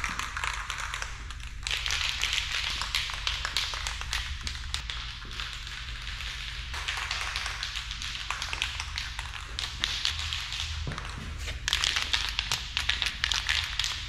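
Rust-Oleum 2X aerosol spray paint can being shaken, the mixing ball rattling fast inside it in long stretches of clicking, over a low steady hum.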